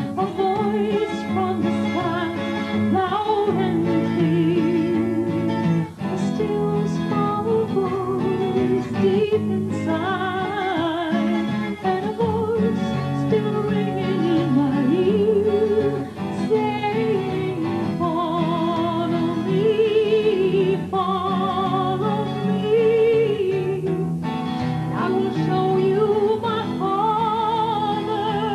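A woman singing a slow song with a wavering vibrato on her held notes, accompanied by a strummed and picked acoustic guitar.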